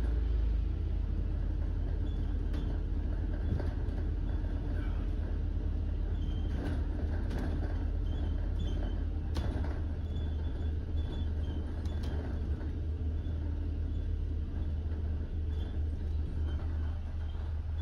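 Interior noise of a double-decker bus on the move, heard from the top deck: a steady low rumble with a few scattered clicks and knocks.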